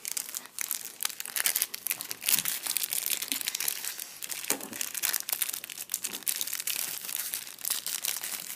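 Crinkly wrapper of a cereal-box toy packet being handled and pulled at by hand to get it open: a dense run of small crackles and rustles.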